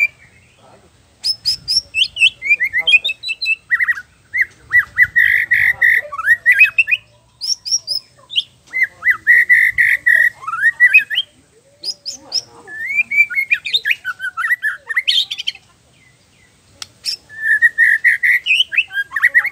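White-rumped shama (murai batu) singing: about five bursts of fast, varied song, a chatter of rapid notes at a middle pitch mixed with sharp high whistles and clicks, each burst a few seconds long with short pauses between.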